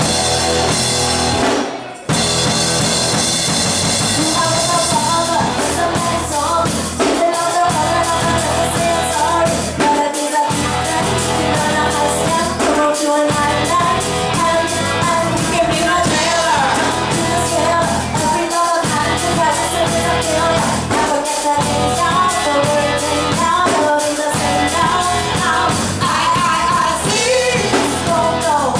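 A rock band playing, with a drum kit and a singing voice. The music cuts out briefly about two seconds in, then comes back in.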